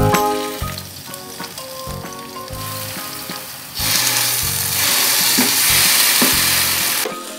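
Pounded chili, shallot and garlic paste sizzling in hot oil in a frying pan as it is spooned in and stirred with a spatula. The sizzle grows much louder about four seconds in and dies down just before the end.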